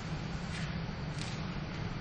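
Steady low hum over a soft hiss, with two faint brief sounds about halfway through.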